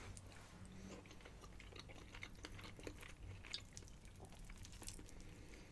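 Faint chewing of pasta: soft wet mouth clicks and smacks scattered through.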